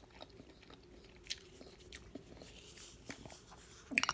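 A person chewing and biting into a baked empanadilla, with scattered small mouth clicks and a short cluster of louder ones near the end.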